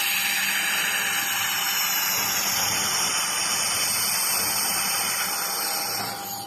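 Handheld laser welding machine firing: a loud, steady hiss with several high whining tones, which fades out about six seconds in.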